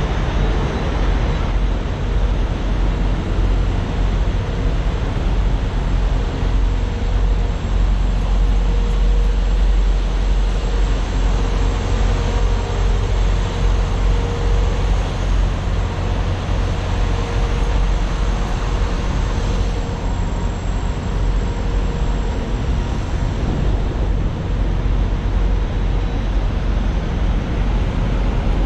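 Idling diesel semi trucks and trailer refrigeration units among parked rigs: a steady low rumble with a faint hum over it.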